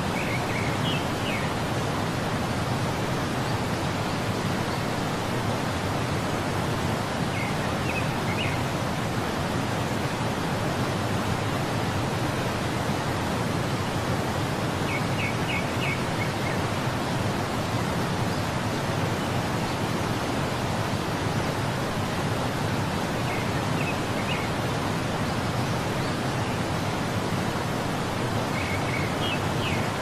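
Steady rushing of a waterfall, with short clusters of faint high bird chirps about every seven or eight seconds.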